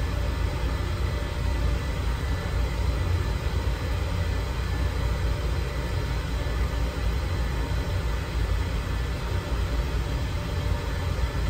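Air compressor running: a steady low rumble that does not change.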